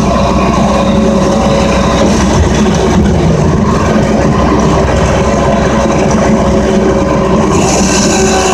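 Loader engine running steadily under load while raking snow, heard from the operator's seat, with a higher hiss coming in near the end.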